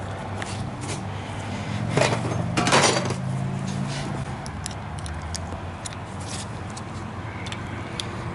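Light metallic clicks and scrapes of hand tools against a steel cotter pin being fitted and bent through a tie-rod castle nut, with a louder scrape about two to three seconds in, over a steady low hum.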